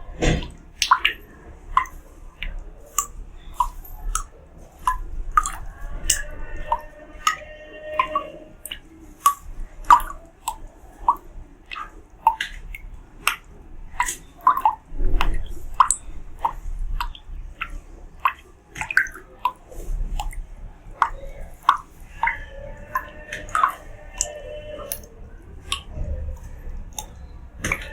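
Water drops falling into water, an irregular series of plinks and plops, about one or two a second, each with a short pitched ring.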